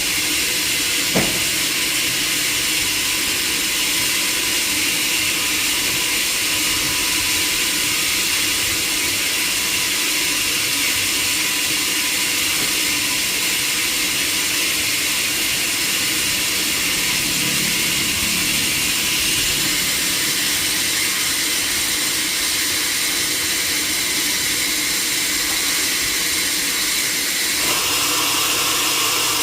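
Sawmill machinery running steadily, a loud even hiss with a constant hum, and one sharp knock about a second in.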